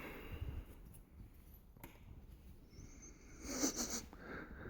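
A single short breathy sniff about three and a half seconds in, over faint background noise.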